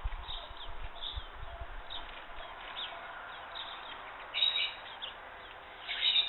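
Small birds chirping in short, high calls, with two louder bursts of chirping, one about four seconds in and one near the end.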